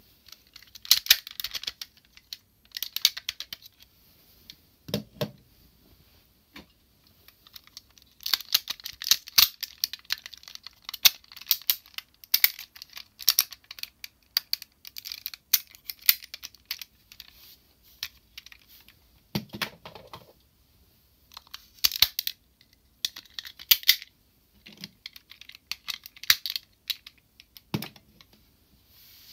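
Hard plastic parts of a DX Zyuohger combining robot toy clicking and rattling as they are handled and snapped together, in clusters of sharp clicks. There are a few duller knocks as pieces are set down.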